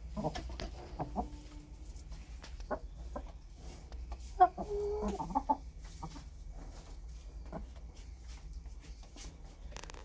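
Hens clucking, with a longer pitched call about halfway through, over scattered sharp taps of beaks pecking at fake eggs.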